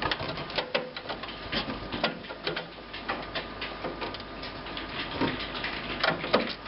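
Scattered small clicks, taps and scrapes of a SIMM memory module being fitted by hand into its slot in the plotter, with a couple of sharper clicks near the end.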